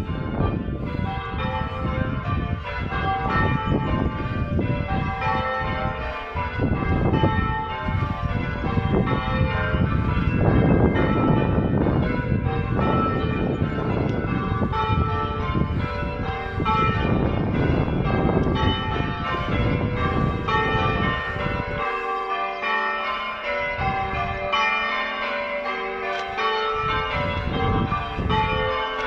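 Church tower bells being rung in changes: several bells struck one after another in a continuous, evenly paced rolling sequence. A low rumble sits underneath for most of it and drops away about two-thirds of the way through.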